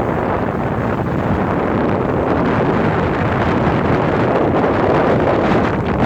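Steady, loud wind buffeting the microphone on a moving boat, with no pauses.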